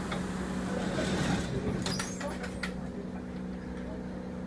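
Subway car's steady electrical hum while stopped at a station, with a quick cluster of knocks and clatters about two seconds in, fitting the car's sliding doors closing.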